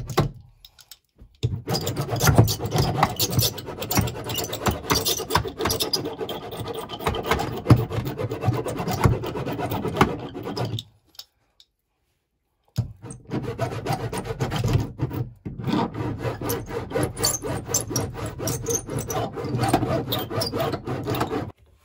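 Repeated hand rubbing and scraping strokes as vibration-damping sheet is worked onto a car's rear fender panel. The strokes cut off twice, briefly near the start and for about two seconds around the middle.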